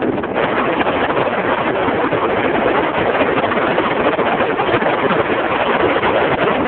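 Wind rushing and buffeting over the camera's microphone in flight under a paraglider: a loud, steady rush of air.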